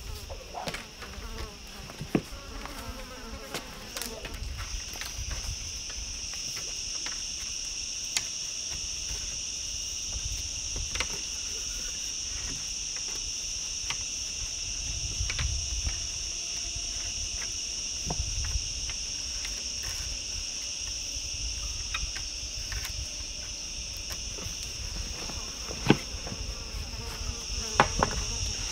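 Steady high-pitched drone of an insect chorus, which swells about five seconds in and then holds. A few sharp knocks are scattered through it, the two loudest near the end.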